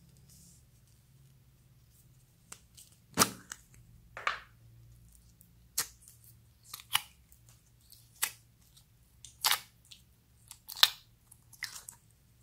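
About a dozen sharp, irregular clicks and sticky pops from a plastic toy capsule packed with clear slime as it is opened and the slime is pulled free of the plastic. The loudest snaps come about three seconds in and again near the end.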